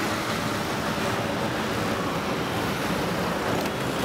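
Steady road traffic noise of motorbikes, scooters and cars crossing a bridge, an even hum of engines and tyres.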